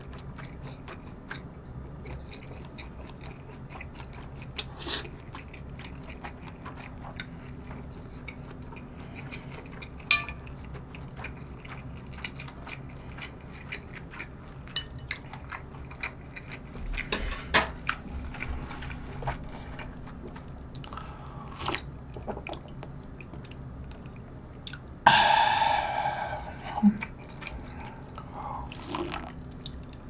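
Close-miked eating of cold spicy noodle soup: quiet chewing with scattered wet mouth clicks and smacks, and one loud slurp about 25 seconds in.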